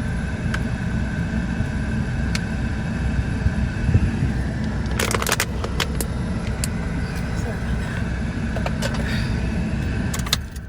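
A vehicle engine running steadily with a low rumble, with a few sharp clicks about five seconds in; the engine sound cuts off near the end.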